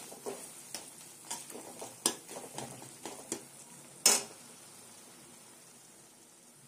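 Steel ladle stirring and scraping thick tomato masala in a metal kadai, with scattered metal-on-metal clinks, then one sharp clack of the ladle against the pan about four seconds in. A faint sizzle continues under it and fades after the stirring stops.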